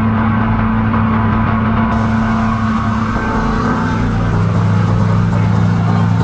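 A boat engine running steadily, its pitch shifting to a new note about four seconds in.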